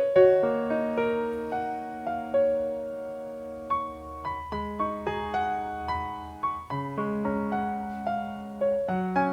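Background music: a gentle piano piece of single notes and chords, each struck and ringing as it fades.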